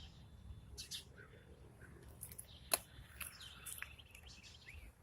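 Faint chirping of small birds, short high calls scattered throughout, with one sharp click a little under three seconds in.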